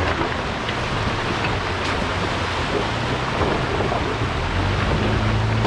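Fast shallow river rushing over stones, with a 4WD's engine humming underneath as it drives into the crossing; the engine note grows stronger about four and a half seconds in.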